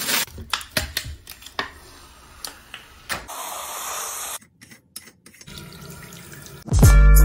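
Crinkling and tapping of peel-and-stick wallpaper and its paper backing being handled. Then water runs from a waterfall bathroom faucet into a sink, and loud music with a beat starts near the end.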